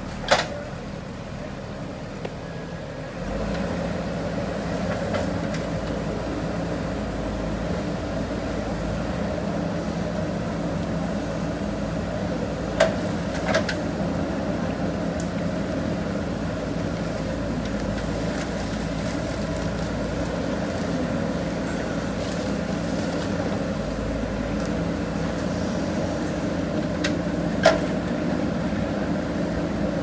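JCB backhoe loader's diesel engine running under load as the backhoe arm digs, picking up about three seconds in and then holding steady. A few sharp knocks stand out: one at the start, two about halfway through and one near the end.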